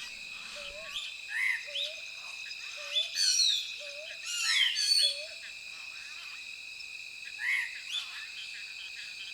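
Forest ambience: a steady high insect drone, with short rising-then-falling animal calls repeating about once a second and a few louder, higher descending calls near the middle.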